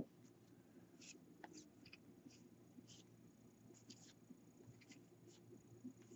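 Near silence, with faint scratchy rustles and ticks of baseball cards being slid and flipped by hand, and a soft thump right at the start.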